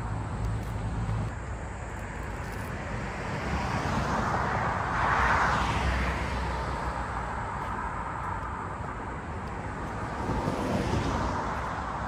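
Road traffic: a car passes, its noise swelling and fading about halfway through, and a softer one passes near the end, over a steady low rumble.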